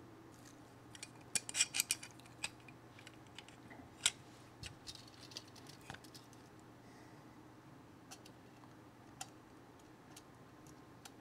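Knipex Cobra water pump pliers being handled: quick metallic clicks from their jaws and pivot as they are opened and set, a rapid cluster about a second in and single clicks after.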